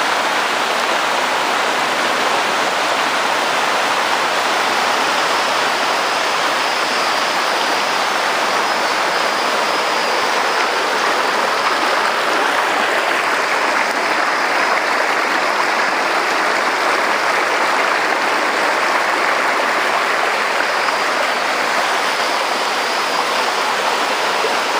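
Rushing water running steadily, an even, unbroken hiss with no surges or pauses.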